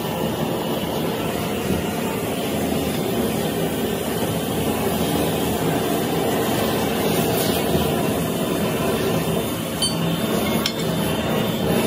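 A machine running with a steady, loud roar, and a couple of faint clicks near the end.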